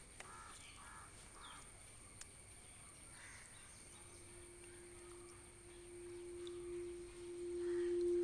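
Quiet outdoor background with a few short bird calls in the first couple of seconds. About halfway through, a single steady low drone tone from the background score comes in and swells, the loudest thing by the end.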